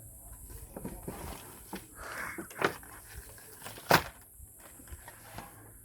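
A doll's packaging being pulled and torn open by hand: rustling with scattered clicks and snaps. There is a sharp snap about two and a half seconds in and the loudest crack about four seconds in.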